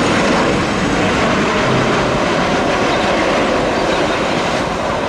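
Boeing 737-800 airliner's twin turbofan engines as it touches down and rolls along the runway: a loud, steady jet rush.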